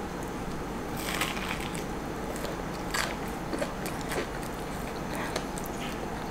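Biting into a Popeyes classic fried chicken sandwich: a crunch of the crispy breading about a second in, then chewing with a few small crunches and clicks.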